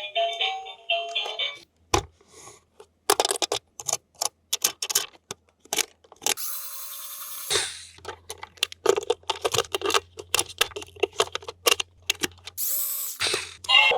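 Sharp plastic clicks and rattles from a toy being handled, with two short bursts of high hissing noise. Background music plays for about the first two seconds.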